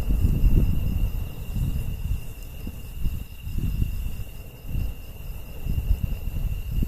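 Crickets or other insects chirping steadily, a continuous high trill, over a louder low rumble that swells and fades.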